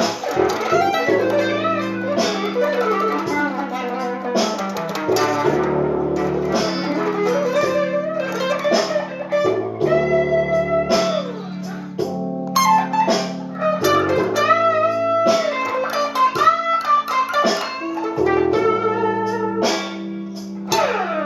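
Guitar playing a blues: plucked lead notes with string bends over sustained low bass notes.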